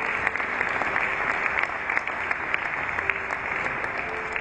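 Audience applauding throughout, dense steady clapping, with a few faint held notes of background music underneath.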